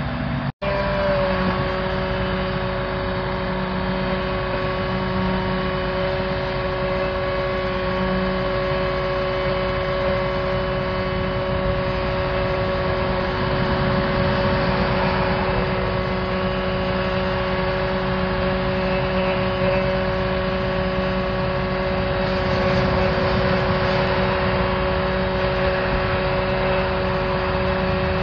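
Engine-driven machinery running steadily at a constant speed, with a constant whine over the engine sound. There is a brief dropout about half a second in, after which the whine settles to a slightly different pitch.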